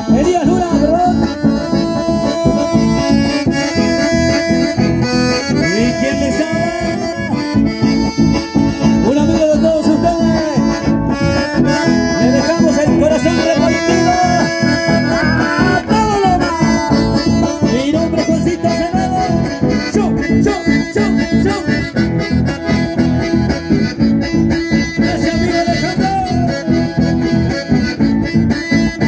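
Chamamé dance music led by an accordion, with a busy, even rhythm running steadily underneath.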